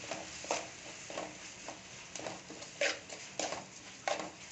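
Metal spatula scraping and stirring a thick onion-tomato masala in a metal kadai, in quick uneven strokes about twice a second, over a faint sizzle of frying oil.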